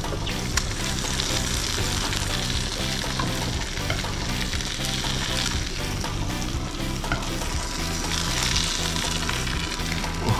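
Food frying in butter in a pan, a steady sizzling hiss, with background music underneath.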